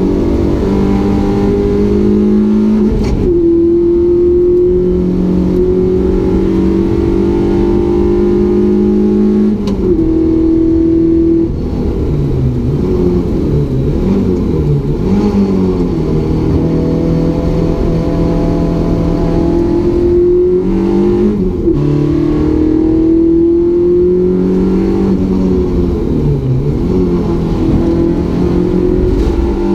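Renault Clio 172's 2.0-litre four-cylinder engine heard from inside the race car's cabin under hard acceleration. Its pitch climbs steadily and drops sharply at upshifts about three and ten seconds in, then dips and rises through a slower stretch before pulling up through the gears again, over steady road and wind noise. The engine is freshly fitted and is being kept below 6000 rpm to protect it.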